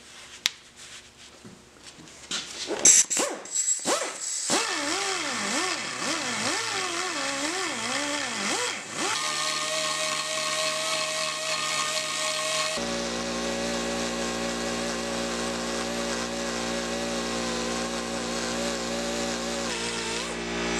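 Pneumatic straight die grinder with a burr cutting into a broken lathe handle, grinding out the break to prepare it for brazing. After a few sharp clicks, the grinder starts about four seconds in; its whine wavers up and down as the burr bites, then holds a steady pitch.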